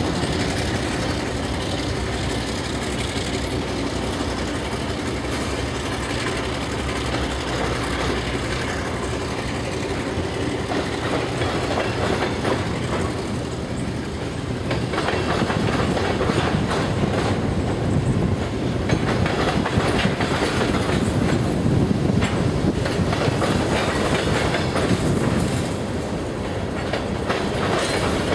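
Freight train rolling through a yard: covered hopper cars' wheels clacking and rumbling over the rail joints, over the steady low running of a diesel locomotive. The clatter grows louder about halfway through as cars pass close by.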